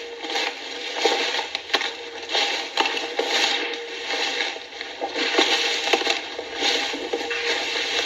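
Troops marching out of step, boots crunching in a ragged, uneven rhythm.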